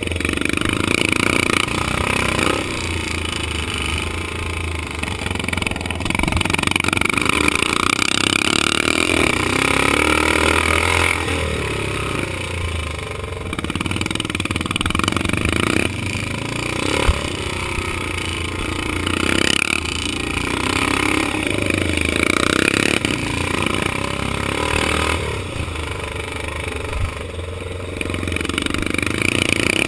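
Vintage motocross motorcycle engine heard from on board, rising and falling with the throttle through corners and straights. Wind and track noise run over it, and there is a single short knock about two-thirds of the way through.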